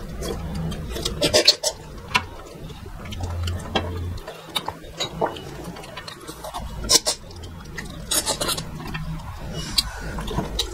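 Close-miked eating sounds from two people eating by hand: irregular wet mouth clicks, lip smacks and chewing, with fingers working food on steel plates.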